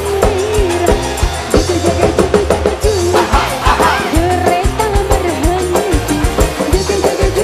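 Dangdut koplo music with a fast, driving drum beat, a steady bass line and a wavering lead melody over it.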